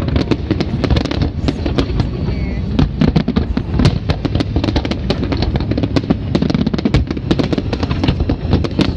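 Aerial fireworks bursting in a dense barrage: many sharp bangs and crackles a second over a steady low rumble.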